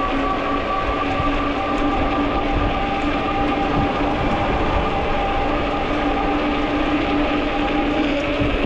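Ecotric fat-tire e-bike riding at a steady speed: a steady whine from its hub motor and hum from the fat tyres on the road, over wind rumble on the microphone.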